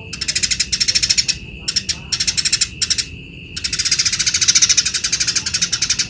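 Eurasian tree sparrow singing a rapid, high chattering trill in several short bursts, then one long unbroken burst of about two seconds near the end.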